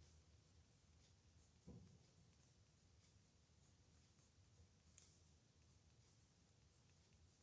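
Faint scratching of a pen nib on paper during handwriting, with a soft low thump about two seconds in and a single sharp click about five seconds in.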